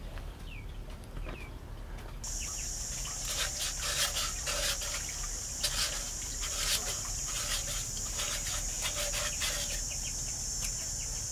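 Short falling bird chirps. From about two seconds in, a steady high-pitched hiss or buzz sets in and continues, with a run of sharp knocks and taps through the middle.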